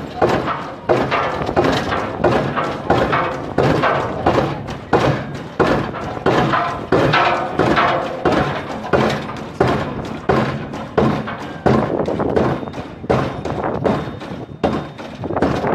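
Pile-driving hammer striking a precast concrete foundation pile, about one heavy blow a second, each a thud with a short ringing tail.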